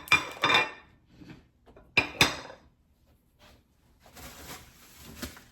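Hard containers and jars knocking and clinking together as a refrigerator is being emptied, in two quick clatters about two seconds apart, followed by a softer rustling.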